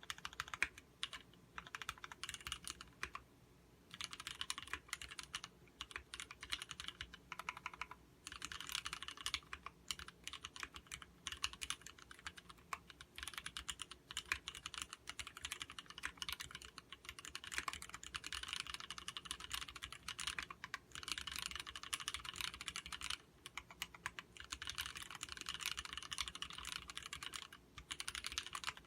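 Fast typing on a Duck Viper V2 mechanical keyboard with vintage Cherry MX Black linear switches: a dense stream of key clicks in runs of several seconds, with a few brief pauses.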